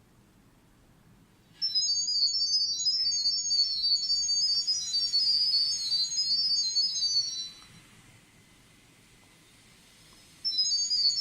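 Smartphone speaker playing a video doorbell app's sound-wave pairing tones: rapid runs of short, high-pitched electronic beeps hopping among a few pitches, which carry the Wi-Fi pairing data to the doorbell. They start about one and a half seconds in, stop about six seconds later, and start again near the end.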